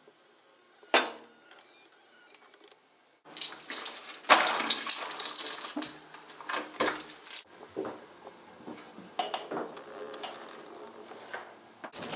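A bunch of metal keys clinking sharply once as it is taken down, then a key rattling into a door lock cylinder and being turned, with a quick run of metallic clicks and rattles, then softer clicks.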